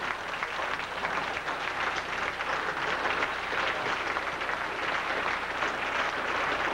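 Crowd applauding steadily in a standing ovation, many hands clapping at once.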